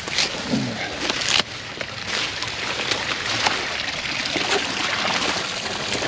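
Water running and splashing, with dry grass and brush crackling sharply in the first second or so as someone pushes through it.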